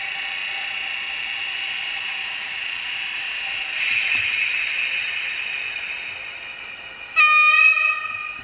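Digital sound decoder in an N-scale ÖBB 4030 electric multiple unit model, playing its sound effects through the small onboard speaker: a steady high electric motor whine, a burst of air hiss about four seconds in that fades away, then a short, loud horn blast near the end.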